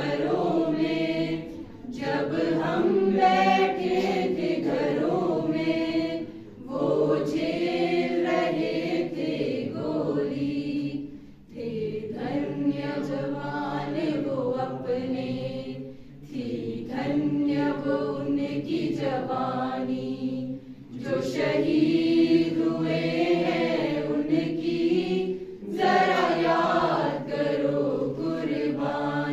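A mixed group of young women and men singing together unaccompanied, in long held phrases broken by short pauses for breath about every four to five seconds.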